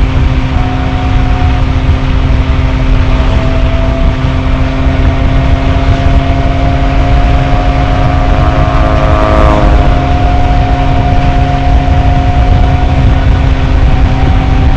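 Honda Vario scooter's single-cylinder engine running at steady cruising speed, a constant drone, under heavy wind rumble on the microphone.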